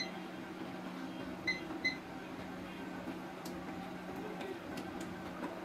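Three short, high electronic beeps from bench repair equipment being set: one at the start, then two close together about a second and a half in. A steady low hum runs underneath, with a few faint clicks later.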